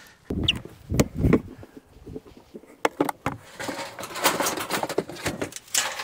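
Footsteps crunching on packed snow, with a few irregular knocks and clunks from gear being handled.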